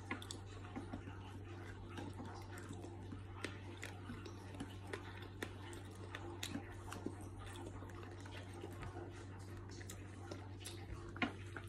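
A person chewing a soft white-bread sandwich with lettuce and cheese, with many small wet mouth clicks, over a steady low hum.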